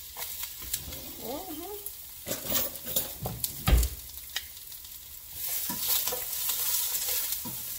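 Strips of bell pepper and asparagus sizzling as they fry in oil in a skillet, with clicks of a utensil against the pan and one sharp thump about halfway through. The sizzle grows louder a little past five seconds in, as the vegetables are stirred.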